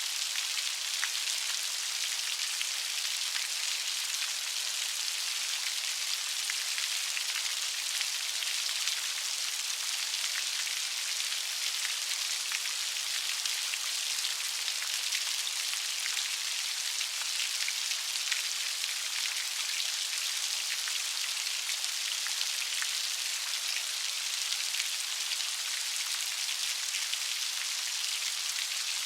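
Light rain falling steadily, a dense even hiss of fine drops pattering on a surface.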